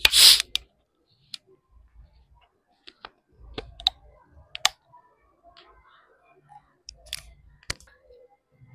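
Plastic bottle of Pepsi cola twisted open, with a short loud hiss of escaping gas as the seal breaks. Sharp clicks and taps from the cap and bottle being handled follow, spread through the rest.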